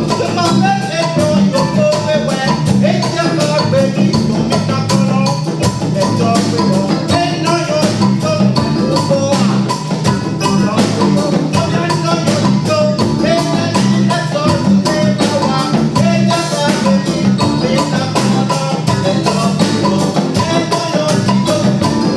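Music: an uptempo track with a dense, steady percussion beat under a moving melodic line.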